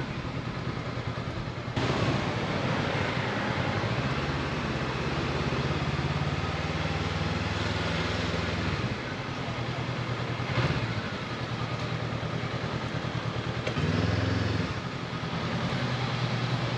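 Honda CB500X parallel-twin motorcycle engine running on the move, its note stepping up and down as speed and gears change, over a steady rush of road noise.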